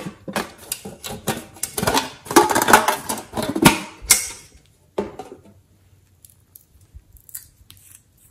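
Hands handling a small metal tin: a busy run of clicks, taps and scraping for about four seconds, then one sharp click and a few faint ticks.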